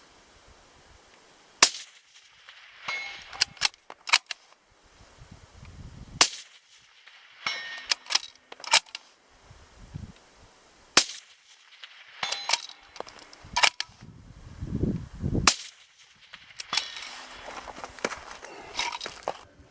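Suppressed Tikka T3X bolt-action rifles firing several single shots, each a sharp crack several seconds apart. Between the shots come clusters of smaller metallic clicks.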